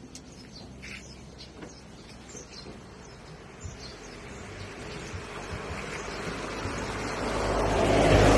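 A motor vehicle approaching, growing steadily louder through the second half until it is close near the end, with birds chirping in the first few seconds.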